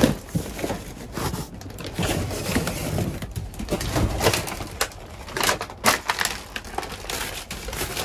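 Plastic bags and cardboard boxes rustling and crinkling as a hand rummages through a pile of discarded food, with irregular crunches and knocks.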